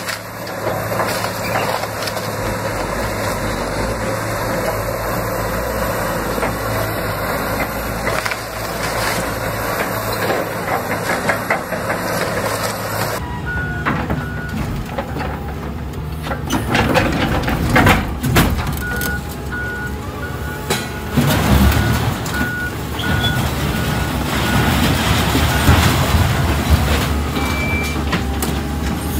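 A Caterpillar 336E hydraulic excavator running while it tears into a wooden house, with timber cracking and debris crashing down. After a sudden cut, a scrapyard material handler's engine runs and its grapple bangs heavily onto a school bus several times, while a backup alarm beeps in evenly spaced beeps for several seconds.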